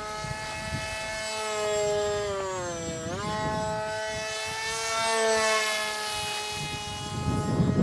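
Small radio-controlled Depron model airplane's motor and propeller whining in flight overhead, one buzzing tone with many overtones. Its pitch sags to a low point about three seconds in and swings straight back up.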